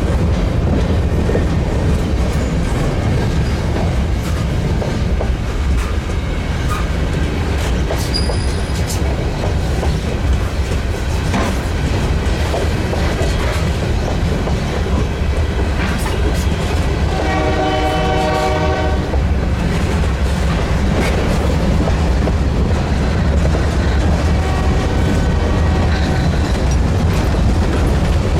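Freight train led by two EMD GP38-2 diesel-electric locomotives running by, with a steady low diesel rumble and the sound of rolling cars. The locomotive horn sounds one blast of just under two seconds about two-thirds of the way through.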